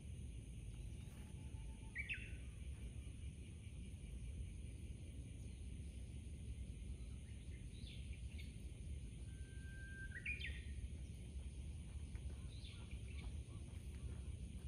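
Outdoor ambience: a steady low background rumble with a few short bird chirps, the clearest about two seconds in and again about ten seconds in.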